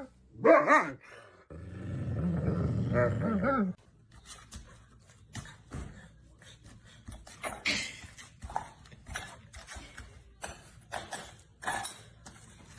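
A dog making a short wavering vocal sound, then growling low for about two seconds. After that come faint scattered clicks and knocks.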